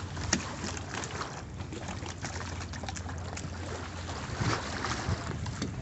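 Venetian lagoon water sloshing and splashing irregularly against stone steps at high tide (acqua alta), over a steady low hum.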